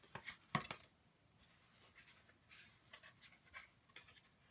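Faint scratchy rustling and handling of a small item and its packaging, with a couple of sharp clicks in the first second.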